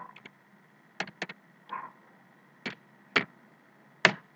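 Computer keyboard keys pressed one at a time, giving about six separate sharp clicks with gaps between them. Three come in a quick group about a second in, and the sharpest comes near the end.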